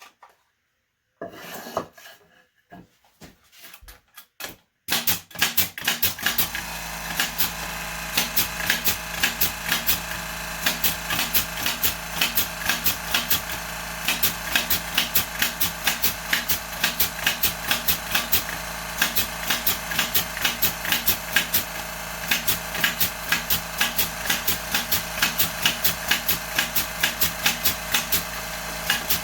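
A few faint taps, then about five seconds in the Excell 2-gallon oil-free compressor's motor starts and runs steadily. Sharp clicks repeat over it about two to three times a second.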